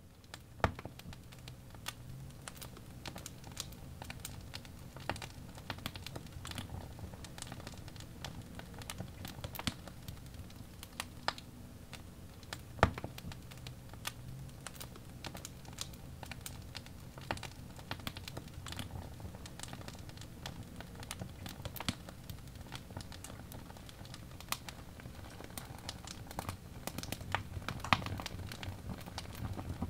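Birch-log fire burning in a fireplace, crackling with dense, irregular small pops and a few louder snaps over a low rumble of the flames.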